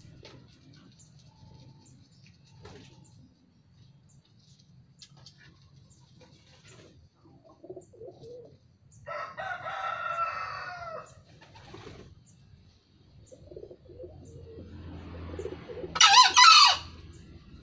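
Male green junglefowl crowing twice: a call of about two seconds around nine seconds in, then a short, very loud, shrill crow near the end.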